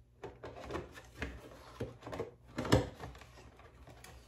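Handling noise of kit parts being worked by hand: a series of light knocks, clicks and rubbing scrapes, the loudest knock about two and a half seconds in.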